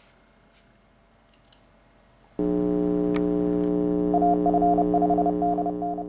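Near silence, then about two and a half seconds in an outro jingle starts: a steady synthesizer chord, with a higher note beeping on and off in short and longer beeps over it from about four seconds in.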